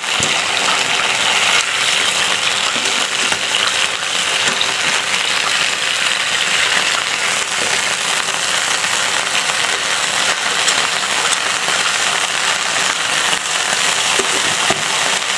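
Pork steaks sizzling in a frying pan as their braising water boils down to bubbling fat: a steady, dense crackling sizzle.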